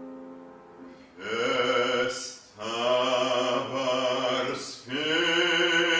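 A piano chord dies away, and about a second in a bass-baritone voice enters singing in operatic style: long held notes in three phrases, each separated by a short break.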